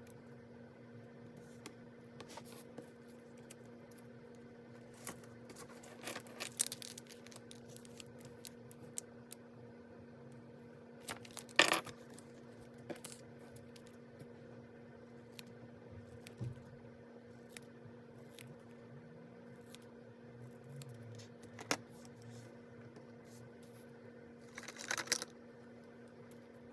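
Scattered light clicks and taps of hands handling a ring-bound planner and stationery, with three short louder clattering bursts, over a faint steady hum.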